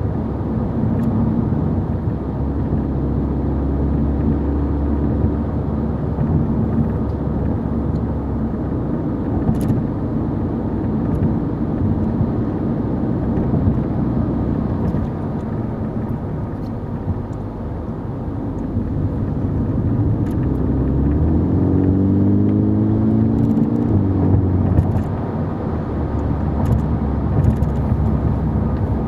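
VW Golf 6 GTI Edition 35's 2.0-litre turbocharged four-cylinder and tyres heard from inside the cabin while driving: a steady engine hum with road noise. About three-quarters of the way through, the revs climb under acceleration.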